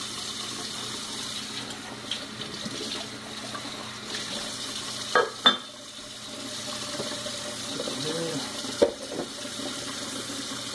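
Kitchen faucet running a steady stream into the sink. There are a few sharp knocks: two close together about halfway through and one more near the end.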